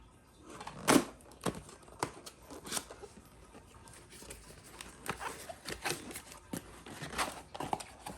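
Packaging being handled and opened: irregular crinkling, tearing and light knocks of cardboard and plastic, the loudest about a second in.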